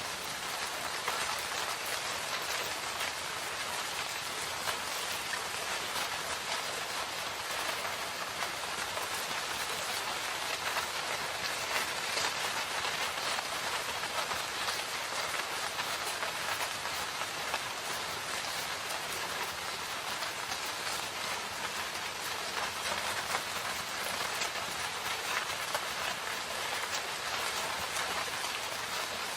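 Steady rain falling, an even hiss dense with the ticks of individual drops.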